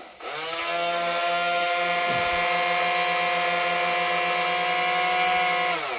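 Electric motor of a longline fishing torpedo, run out of the water, spinning up to a steady whine, holding for several seconds, then winding down in pitch and stopping. It cuts out on its timer after only a few seconds every time, which is the fault the owner is reporting.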